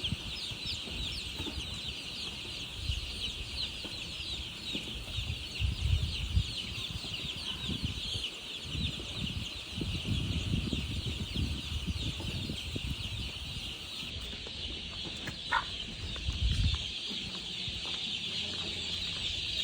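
A flock of baby chicks peeping all at once: a dense, continuous chorus of short, high, falling cheeps, with occasional low thuds underneath.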